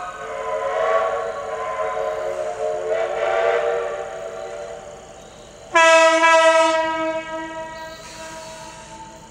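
Locomotive whistle blowing for a road crossing. First come long, wavering blasts of a chord of several notes, swelling and fading over about five seconds. Then a sudden, louder single-note horn blast about six seconds in holds for around two seconds and fades away.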